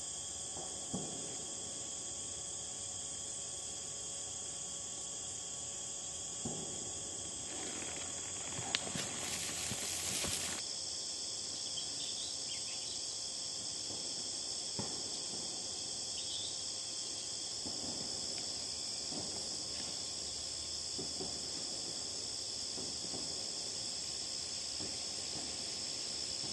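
Insect chorus: a continuous high-pitched trilling that drops somewhat lower in pitch about ten seconds in. A brief rush of noise comes just before the change, and there are a few faint knocks.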